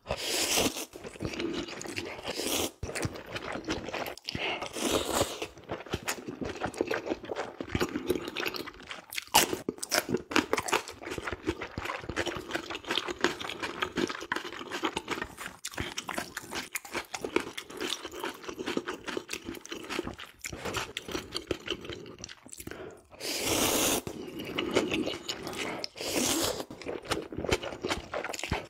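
A man eating ramen close to the microphone: several long, loud slurps of noodles, with wet chewing and crunching in between.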